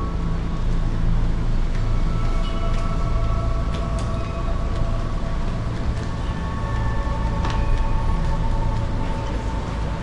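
Steady low rumble of road traffic and vehicle engines, with a few faint steady tones above it that shift now and then.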